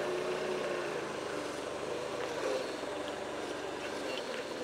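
An engine running steadily, a low hum with a faint wavering tone over it.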